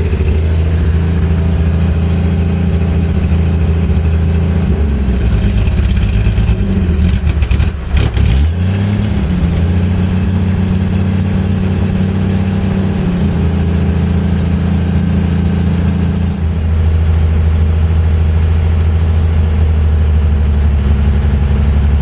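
Car engine running with no muffler, loud and open-sounding like a boat. Between about five and nine seconds in its speed wavers and briefly drops, then it settles back to a steady idle.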